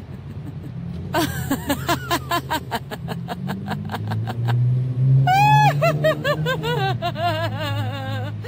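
A woman's laugh: a fast run of giggling, then from about five seconds in a louder, pitched 'ha-ha-ha' laugh, over a steady low hum.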